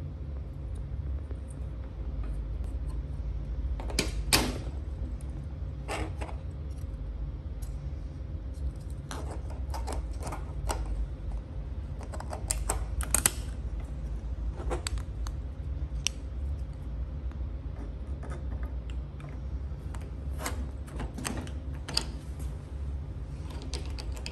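Irregular clicks and knocks of hard 3D-printed plastic parts and a caster's metal mounting plate being handled and fitted together against a metal cart, a few sharper knocks standing out, over a steady low rumble.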